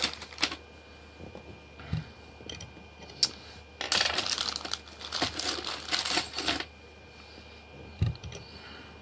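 Loose metal wrenches clinking and rattling against each other as they are rummaged through in a bag, in irregular bunches of sharp clicks.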